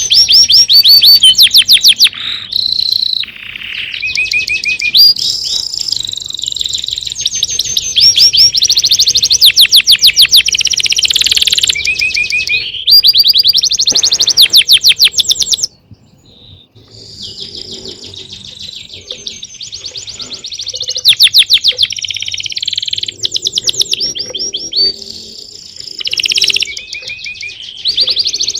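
Several songbirds singing at once: dense, overlapping runs of rapid high chirps and trills, with a brief lull just after the middle.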